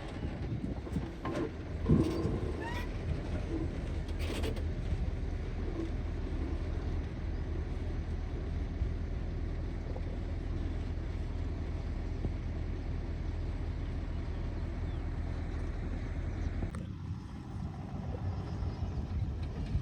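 Excavator's diesel engine running steadily under load, with a few sharp knocks in the first five seconds; the low engine note drops off about three-quarters of the way through.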